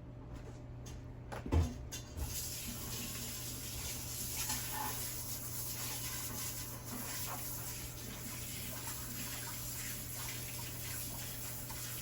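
A knock, then a kitchen tap turned on and running steadily into a sink from about two seconds in.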